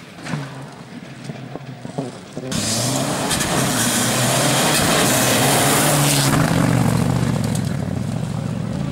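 A rally car at full speed on a special stage. After a quieter couple of seconds, a loud rush of hiss comes in suddenly with the engine note under load, and the engine keeps running hard after the hiss dies away.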